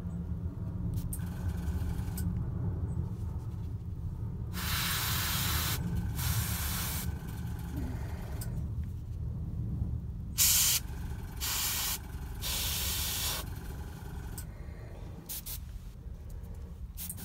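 Airbrush spraying paint in short bursts of hissing air, each a second or less, with a pair about five seconds in and a cluster of three about ten to thirteen seconds in. A steady low hum runs underneath.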